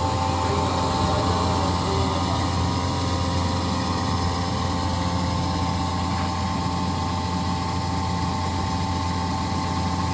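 Atlas Copco GA 11 electric rotary screw air compressor (11 kW) running steadily: a constant low hum with several steady whining tones above it.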